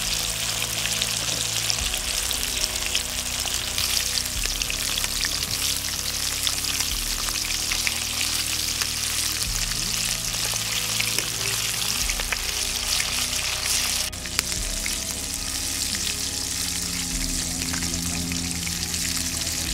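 Batter-coated chicken pieces deep-frying in a pan of hot oil: a steady, dense sizzle with fine crackling.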